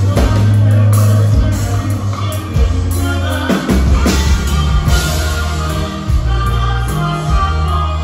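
Live norteño band playing, with electric bass, bajo sexto, drum kit and saxophones; strong bass notes shift every second or so under the melody.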